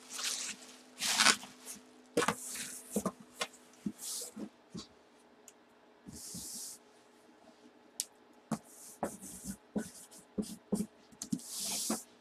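Cardboard box being handled and shifted by hand: irregular scraping and rustling of cardboard, with many short knocks and taps.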